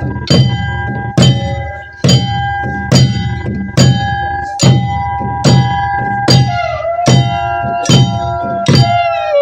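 Barrel drum (dhol) struck in a slow, even beat, a heavy stroke a little more often than once a second. A held melodic note sounds over the beat and starts to slide down and wander in pitch about two-thirds of the way in.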